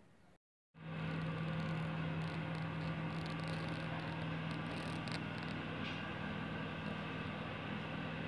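A steady machine-like hum with one strong low tone over a noisy haze, starting abruptly about a second in after a split-second gap of silence.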